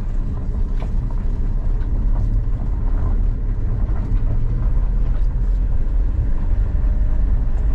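Motorhome engine running with the low rumble of the vehicle driving slowly, heard from inside the cab, with a few light clicks.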